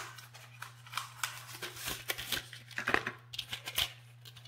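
Handling of fake-nail packaging, a small cardboard box and the nails inside: a scattered run of short clicks, taps and rustles. A steady low electrical hum lies underneath.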